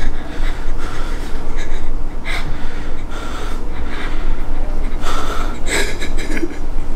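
A woman crying, sobbing in a run of ragged, gasping breaths, the heaviest near the end, over a steady low hum.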